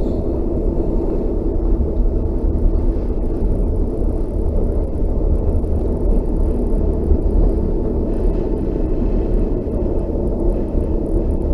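Steady low rumble of a Russian Railways passenger train running, heard from inside a compartment coach.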